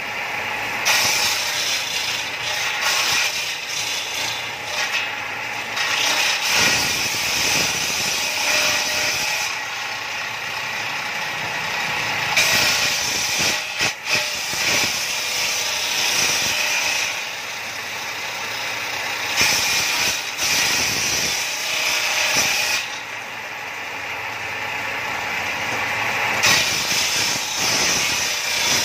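Table saw with a circular blade ripping wooden boards into strips: a steady motor and blade sound, with a harsh hissing cutting noise that comes and goes as each board is fed through, about four cuts with short spells of the blade spinning free between them.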